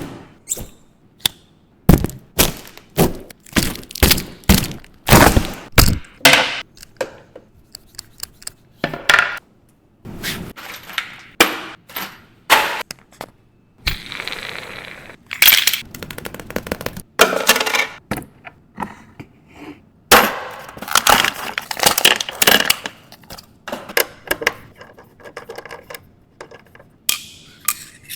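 Ergonomic office chair being unboxed and assembled: an irregular run of sharp knocks, clicks and clunks as hard plastic and metal parts are handled and fitted together, with a few stretches of rustling.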